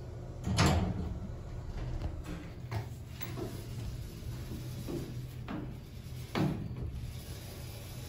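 Manual freight elevator's expanded-metal mesh gate being handled, clanking and rattling several times over a steady low hum, with the loudest clank about half a second in and another near the end.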